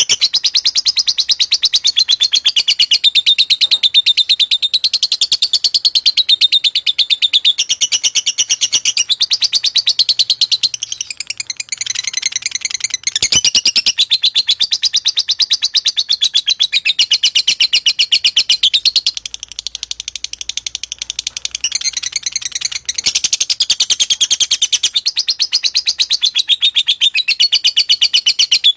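Lovebird singing a long, unbroken chatter of rapid, high chirps, easing slightly twice before picking up again.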